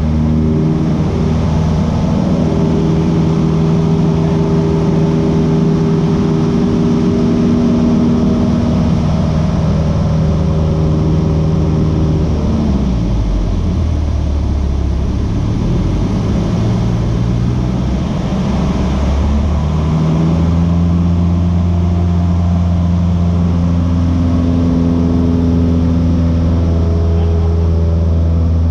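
Light aircraft's piston engine and propeller droning loudly inside the cabin during aerobatic manoeuvres. About twelve seconds in, the engine note sinks and wavers under a louder rush of air for several seconds. The steady drone comes back about twenty seconds in.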